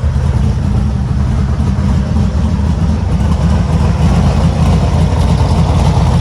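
1972 VW Super Beetle's air-cooled flat-four engine idling steadily just after starting, with the air cleaner off.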